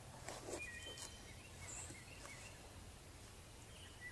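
Quiet outdoor ambience with a few faint, short bird chirps and a couple of soft rustles early on.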